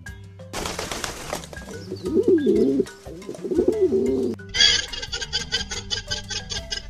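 Pigeons cooing: two low, wavering coos in the middle, after a second-long rush of noise. Near the end a fast, even run of clicks, about six a second, takes over, over a low steady music bed.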